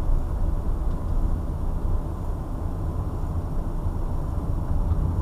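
Car cabin noise while driving slowly at about 17 mph: a steady low rumble of engine and tyres on the road.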